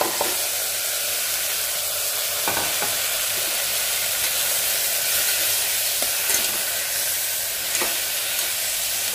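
Marinated chicken pieces sizzling steadily in hot mustard oil in a pressure cooker, with a few light scrapes and knocks of a steel spatula as they are stirred.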